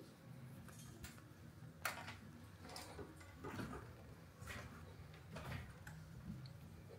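Faint, irregular footsteps and knocks on the wooden treads of a metal spiral staircase, with a sharp click about two seconds in, over a low steady hum.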